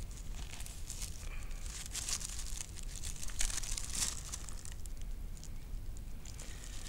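Irregular crinkling and crackling of packaging being handled.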